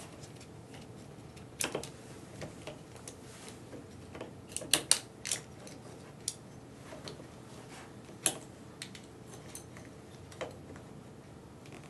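Scattered light clicks and small rattles of a motorcycle's stock throttle assembly being handled and taken off the handlebar: the plastic housing, throttle cable and throttle tube with its grip. The sharpest clicks come in a quick cluster about five seconds in.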